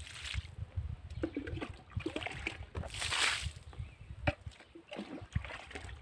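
Water scooped from a bucket with a plastic jug and poured by hand onto seedlings: sloshing and trickling, with a louder pour about three seconds in.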